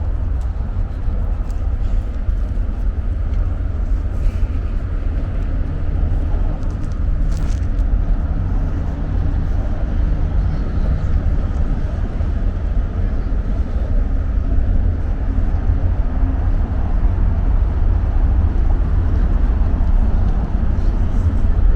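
Wind buffeting a small camera's microphone during a snowstorm, a steady low rumble that carries on without a break.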